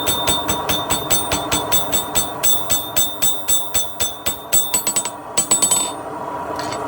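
Blacksmith's hammer striking hot steel on an anvil in a quick, even rhythm of about four to five blows a second, each with a high ring, ending with a few louder blows and stopping about six seconds in. A steady hum runs underneath.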